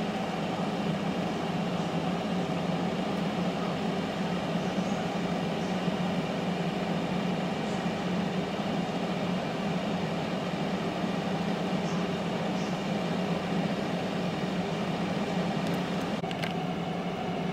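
PowerXL digital air fryer running mid-cook, its fan and heater giving a steady hum. A couple of faint clicks near the end.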